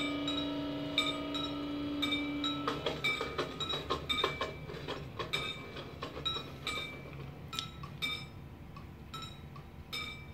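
Model-railway level-crossing bell ringing, a metallic ding about twice a second that grows fainter and sparser towards the end. A steady hum runs under it for the first three seconds or so.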